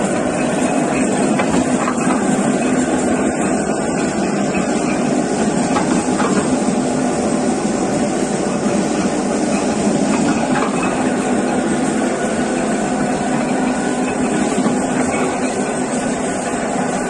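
Gear-cutting machine running steadily as it cuts a gear, a continuous mechanical noise with a low steady hum.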